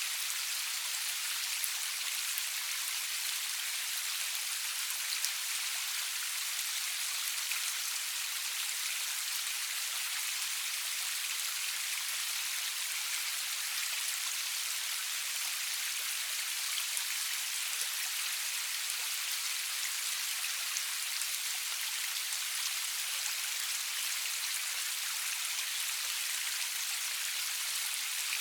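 Steady rain falling, an even hiss with scattered drop ticks and no thunder.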